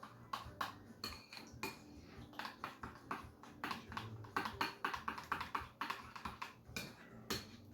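A utensil clinking and scraping against a bowl as avocado sauce is stirred together. The clicks run in a quick, uneven series and are fastest from about three to six seconds in.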